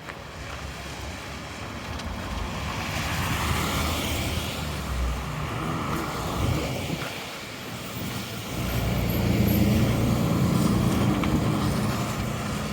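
Road traffic: vehicles driving past close by, the sound swelling twice, about four seconds in and again near the end, with a lower engine rumble in the second pass.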